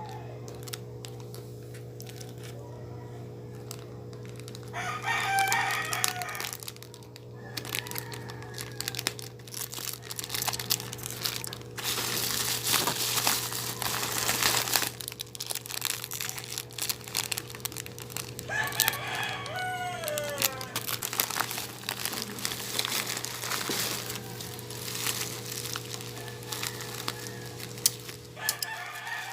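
Plastic packaging crinkling and rustling as a parcel is unwrapped. A rooster crows three times in the background, each crow about two seconds long: about five seconds in, around nineteen seconds, and at the very end. A steady low hum runs underneath.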